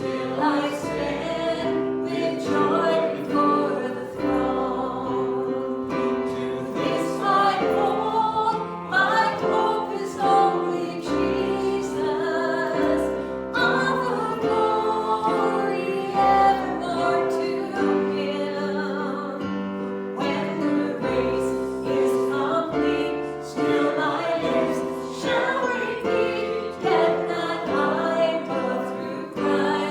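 Church worship music: singing over held keyboard chords and a bass line that changes every couple of seconds.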